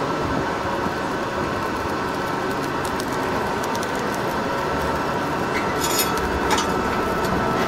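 Steady rushing noise, with a few light clicks about six seconds in.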